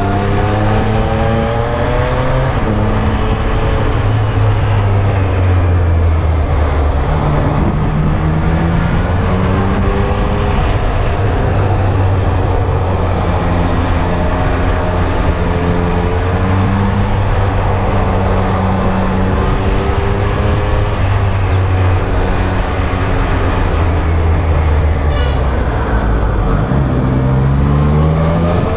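Triumph Street Triple R's three-cylinder engine heard from the rider's seat, its pitch rising and falling over and over as the throttle is opened and closed, with wind and road noise underneath.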